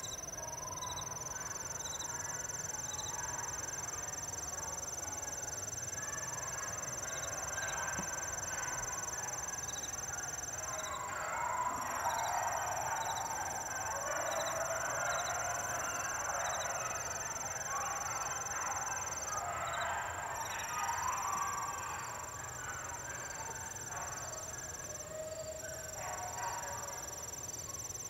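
A pack of beagles baying as they run a rabbit's track, growing louder about ten seconds in and fading back near the end as the chase swings back around. Steady high trilling and chirping of crickets and other insects runs underneath.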